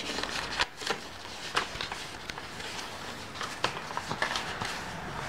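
Paper pages of a handmade journal being handled and turned: soft rustling with scattered light clicks and taps.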